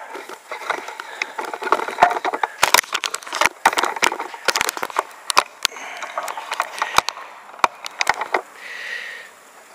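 Handling noise from a handheld camera being moved about close against clothing: many irregular clicks, knocks and rustles.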